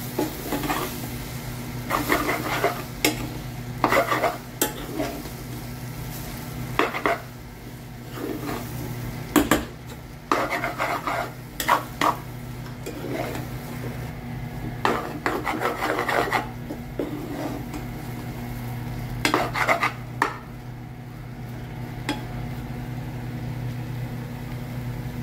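A spoon scraping and clinking against a stainless steel pan as cooked rice is stirred and turned over with egg masala. The strokes come irregularly and grow fewer over the last few seconds, over a steady low hum.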